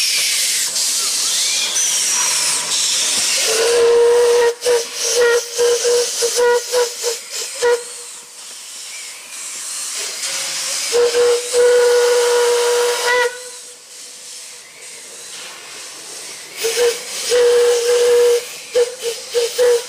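Puffing Billy narrow-gauge steam locomotive 12A blowing its steam whistle in three spells as it approaches and passes. One spell is a long held blast and the others are broken into short toots, over a loud hiss of steam.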